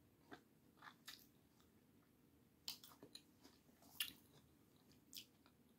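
Faint, close-up sounds of a person chewing food: a scatter of short, soft clicks from the mouth at uneven intervals, the loudest about a third and two-thirds of the way through.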